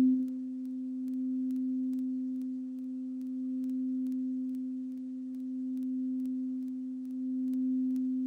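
Crystal singing bowl tuned to C for the root chakra, sung with a mallet so that it holds one pure, steady tone with a faint higher overtone. The tone slowly swells and eases about every two seconds.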